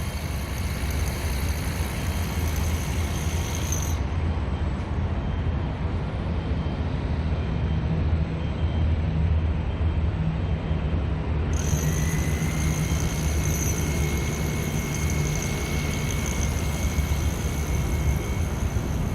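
Steady low rumble of road traffic. A faint, steady high whine comes in about two-thirds of the way through.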